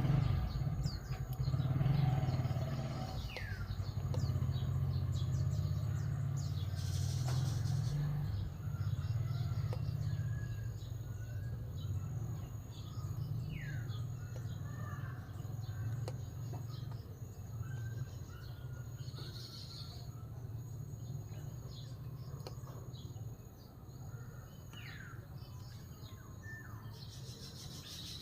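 Birds chirping now and then, short falling calls, over a steady low rumble that fades slowly.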